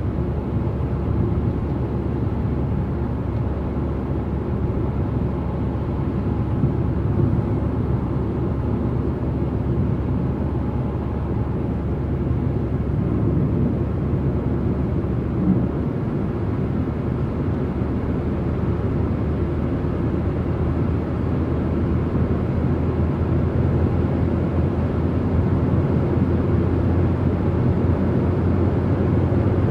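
Steady low rumble of a car travelling at motorway speed: tyre and engine noise droning evenly, growing slightly louder in the last third.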